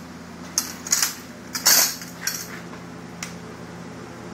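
Sharp metallic clicks and clacks from a BB gun being handled, about six of them, the loudest a little under two seconds in.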